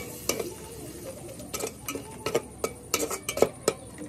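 Metal spatula clinking and scraping against the side of an aluminium cooking pot while stirring, a string of irregular clinks with the loudest near the end.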